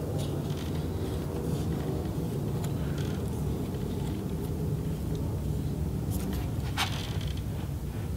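Steady low hum with two light clicks of hands handling the opened laptop's chassis, about six and seven seconds in.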